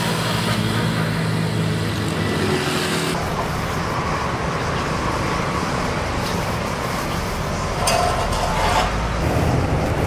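Road traffic noise, with vehicles running steadily. About three seconds in the sound changes abruptly from a steady low hum to a rougher, noisier rush.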